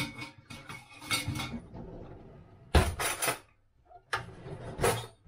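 Metal spoon clanking and scraping against a saucepan of cooked rice: a handful of separate knocks and scrapes, the loudest about three seconds in.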